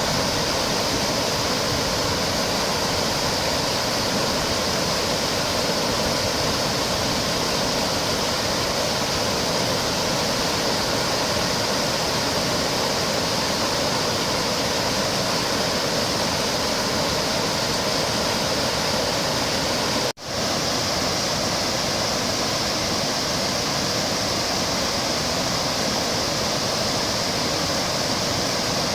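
Tat Ton Waterfall, a low, wide cascade about 6 m high and 50 m wide, with water pouring steadily over rock in an even, unbroken rush. The sound cuts out for a split second about twenty seconds in and then resumes.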